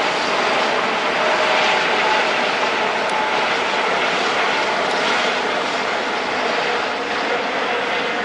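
A formation of military helicopters flying overhead: steady rotor and turbine noise with a faint engine whine, easing off a little toward the end.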